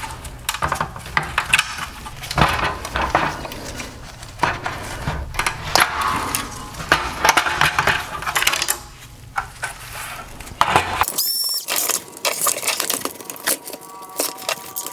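Clicks, snaps and light clatter of plastic headlight parts being unclipped and handled. These are the clips and wire harness of an LED headlight assembly coming apart. About eleven seconds in, the background hum drops away and a few short high whines follow.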